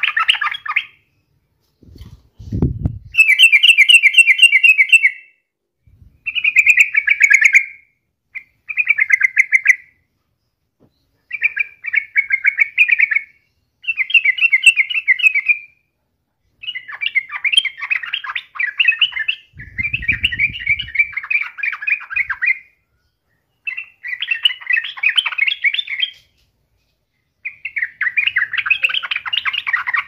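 Yellow-vented bulbul singing in a series of about nine short warbling phrases, each a second and a half to three seconds long, with brief pauses between them. Two low thumps come in, one near the start and one about midway.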